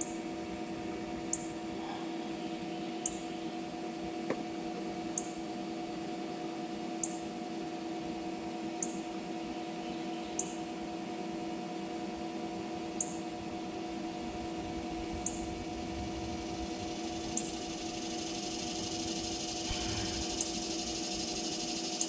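A steady hum made of several fixed pitches, with a short high chirp repeating roughly every two seconds and a single sharp click about four seconds in.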